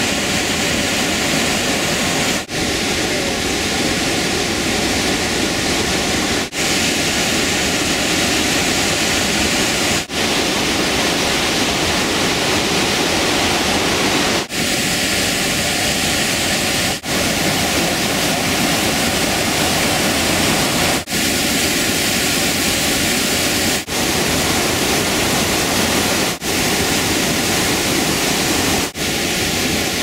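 Steady, loud rush of a large waterfall, white water from a glacial river pouring over rock. The sound dips very briefly every few seconds where separate shots are spliced together.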